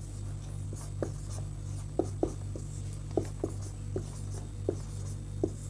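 Marker pen writing on a whiteboard: a string of about ten short strokes of the tip on the board, over a steady low hum.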